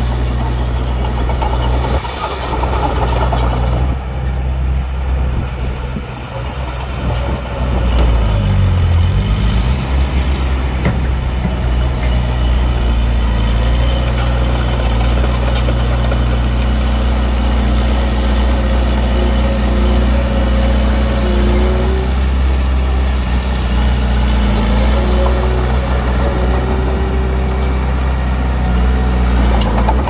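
Diesel engine of heavy earthmoving machinery running steadily under load. About nine seconds in the engine note dips and climbs again, and a thin whine rides over it through the second half.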